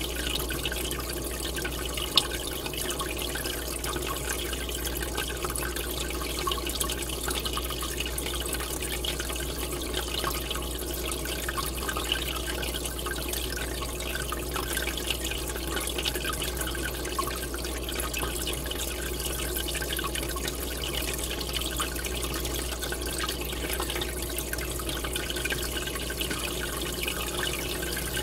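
Aquarium air bubbler: a steady stream of bubbles fizzing and splashing at the water surface, with small pops throughout over a low steady hum.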